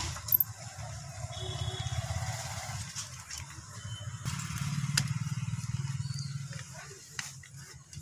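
A few light clicks and taps as a copper wire is handled around the terminal screws of electrical switches on a board, over a steady low hum.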